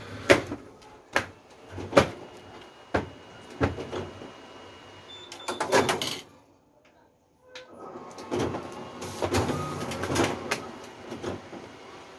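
A stack of thick card stock being fanned and flexed by hand: sharp paper snaps about once a second, then a quick flurry, a short quiet pause, and a longer stretch of rapid snapping and rustling.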